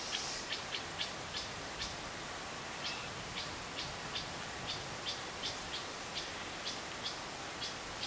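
An unseen animal calling from the tree canopy: a steady series of short, high chirps, two to three a second, with a break of about a second near two seconds in. A soft, even hiss of breeze runs underneath.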